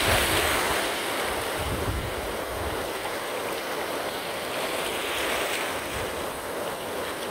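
Shallow surf washing in: a steady rush of foaming water that swells at the start and again about five seconds in, with wind rumbling on the microphone.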